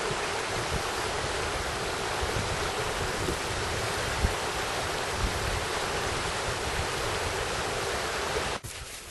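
Steady rush of running water, as of a forest stream, with a soft low thump about four seconds in; the sound cuts off abruptly near the end.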